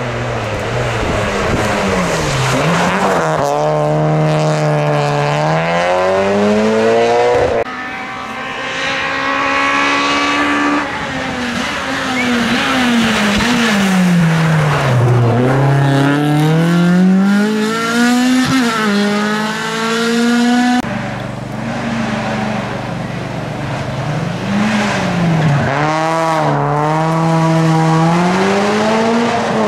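Rally car engines, a Ford Fiesta and a Peugeot 306 among them, revved hard as the cars pass one after another. The pitch climbs with each gear and drops sharply on the shifts and on lifting off for corners. The sound changes abruptly twice as one car gives way to the next.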